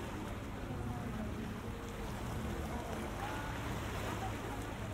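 Steady low rumble and hiss of outdoor waterfront ambience, with a few faint distant voices.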